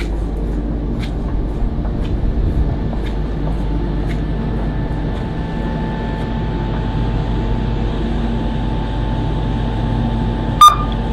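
Steady low drone of a large ferry's machinery, with a level hum. About ten seconds in, one sharp click with a brief beep.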